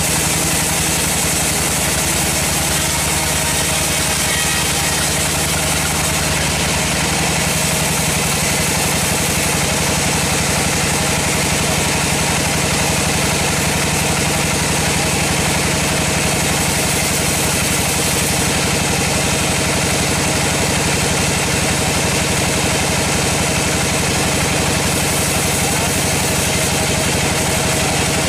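Large band sawmill running steadily, its vertical band blade ripping lengthwise through a hardwood log.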